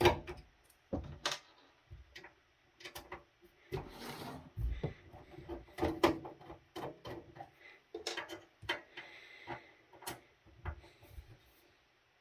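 Irregular clicks, knocks and brief scrapes of a screwdriver and hands working on the metal case of a Biamp Audia Solo, backing out its stiff sheet-metal cover screws.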